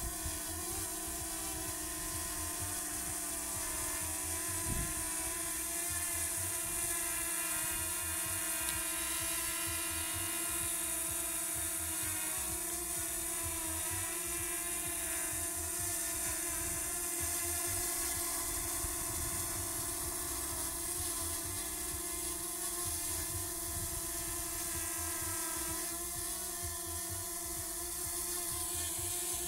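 Small quadcopter drone hovering, its propellers giving a steady high-pitched whine with several held tones.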